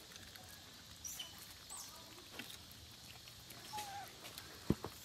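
Long-tailed macaques feeding, with faint scattered high squeaks and chirps and a short call about four seconds in. A single sharp knock comes shortly before the end.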